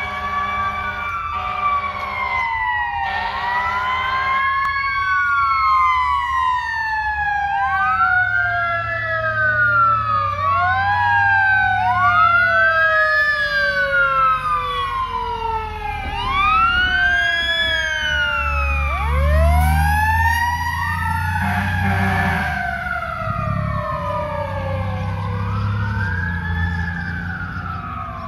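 Fire engine sirens: a siren wailing up and down about every three seconds over a siren that winds up and then falls slowly in pitch. Steady horn blasts sound in the first few seconds, and the truck's engine rumbles louder as it passes.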